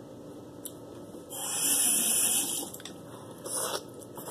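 Bathroom tap running into the sink for about a second and a half, hissing and splashing, with a shorter burst of the same sound about a second later.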